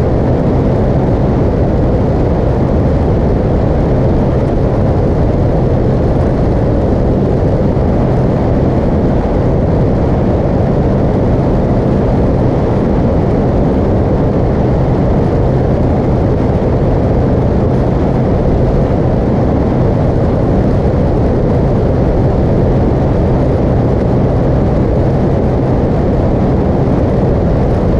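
Motorcycle cruising at a steady highway speed: a constant engine drone mixed with heavy wind and road noise at the bike-mounted camera, with no change of throttle.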